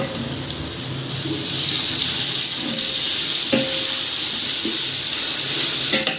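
Wet ginger-garlic masala paste hitting hot oil and fried onions: a loud sizzle that starts suddenly about a second in and stays steady, with a few knocks in between.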